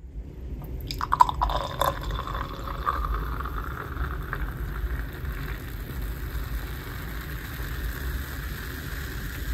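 Fizzy drink in a glass: a few glassy clicks about a second in, then steady fizzing of bubbles, with a low rumble underneath.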